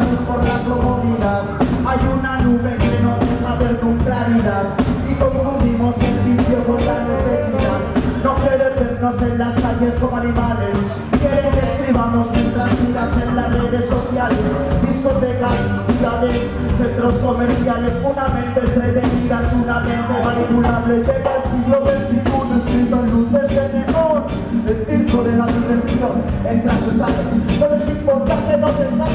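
Live reggae band playing with keyboard and guitar over a steady beat, a male vocalist singing into a microphone over it through the PA.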